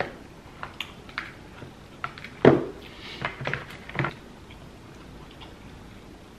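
Fingers digging through a sauce-coated seafood boil of king crab legs and sausage: a run of short wet clicks and squishes, the loudest about two and a half seconds in, quiet after about four and a half seconds.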